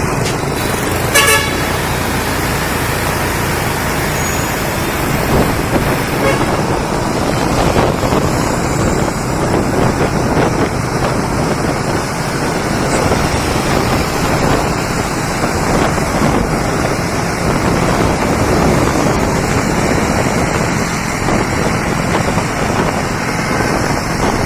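Busy street traffic heard from a moving motorbike: steady engine and road noise from scooters and cars, with horns tooting.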